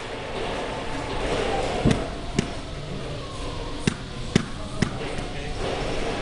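Rubber mallet tapping click-lock flooring planks together: about five separate knocks, some in quick pairs, over steady background noise.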